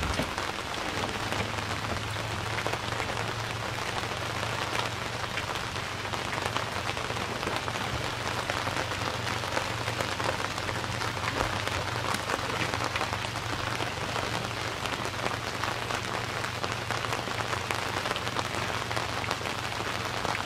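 Rain falling steadily on the river, with a steady low hum underneath.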